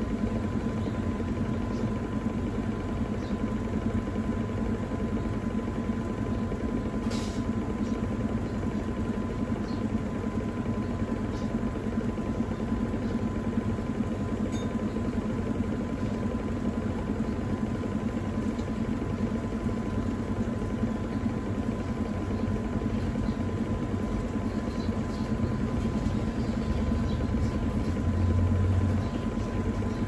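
Panasonic NA-FD10X1HRM top-load washing machine in its final spin, its inverter motor and belt-driven tub spinning steadily at speed to wring water from the load: an even hum with a thin steady tone above it. A single light click about seven seconds in, and a short swell of low hum near the end.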